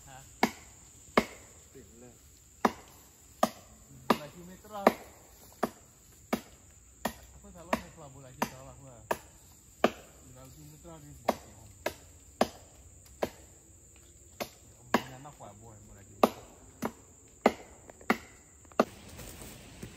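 Sharp chopping strikes on wood, about three every two seconds at an uneven pace, from someone cutting at a branch or vine up in a tree. Under them is a steady high insect drone. Strikes and drone both stop abruptly near the end.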